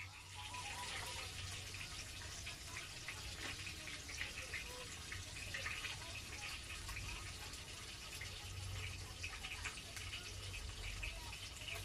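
Fish frying in hot oil: a steady sizzle thick with small crackling pops, over a low steady hum.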